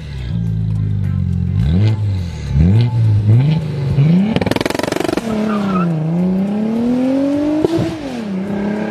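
Audi sedan engine revved through an aftermarket exhaust, blipped up and down several times. There is a rough stuttering burst about halfway through, then a slower climb in revs with a sharp pop near the end before it settles.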